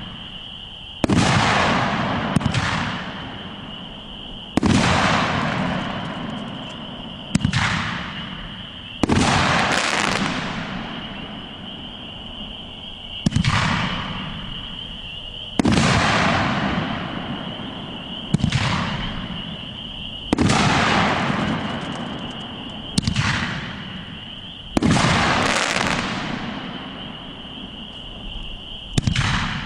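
Pyro Demon Firestorm, a 9-shot, 2-inch firework cake, firing its shots one after another every two to four seconds. Each shot is a loud report that fades away over a second or two.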